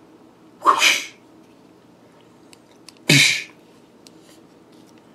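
A person sneezing twice, about two and a half seconds apart, each a short sharp burst. Faint clicks from a small plastic action figure being handled come in between.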